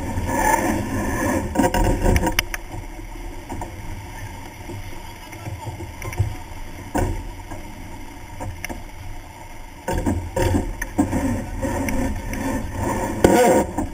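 Sailboat under way in choppy water: a steady rush of water and wind noise on the deck-mounted microphone, with a few sharp clicks of deck gear.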